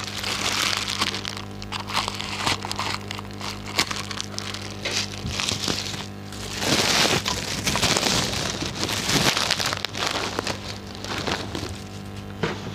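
Plastic packaging crinkling, crackling and tearing in irregular bursts as a parcel is unwrapped by hand, over background music.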